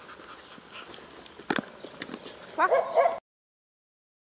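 Dog giving a quick run of high, excited yips near the end, after a single sharp knock about a second and a half in; the sound then cuts off abruptly.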